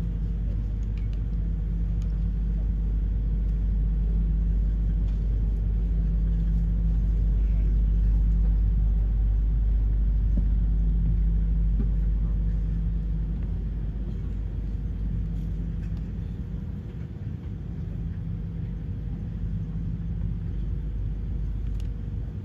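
Low engine rumble with a steady hum, growing louder until about eight seconds in, then slowly fading away.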